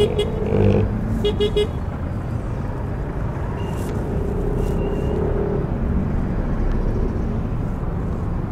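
Yamaha NMAX v2 scooter under way, its running mixed with a steady rush of wind and road noise. It opens with two quick strings of short beeps in the first second and a half.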